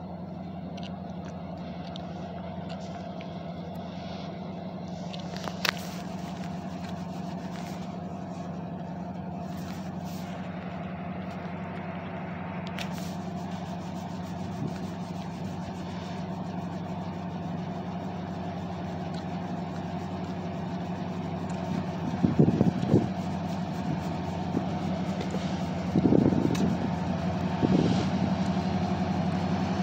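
Diesel freight locomotive running with a steady low drone that slowly grows louder as the train approaches. A few short low thumps come about three-quarters of the way through and near the end.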